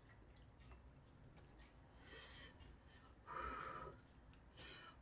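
Quiet, short breathy puffs as a person blows on steaming hot udon noodles to cool them, three in all, the middle one the longest and loudest.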